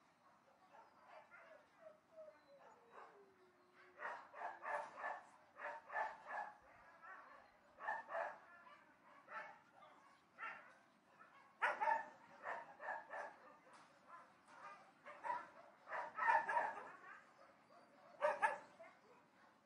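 Dogs barking at a distance in irregular runs of short barks, with a long call falling in pitch a couple of seconds in.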